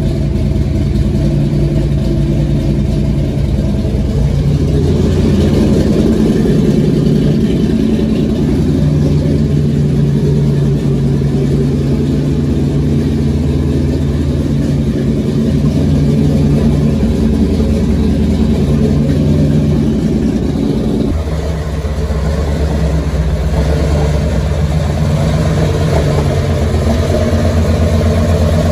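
Supercharged, fuel-injected big-block Chevy V8 running loud and steady. Its engine speed steps up about five seconds in and falls back about twenty-one seconds in.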